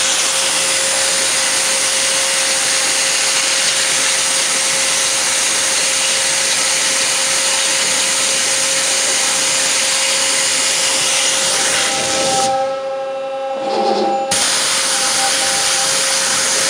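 Waterjet cutter's high-pressure water stream cutting through a block of foam: a loud, steady hiss with a steady tone beneath it. The hiss drops out for a moment about twelve and a half seconds in, then resumes.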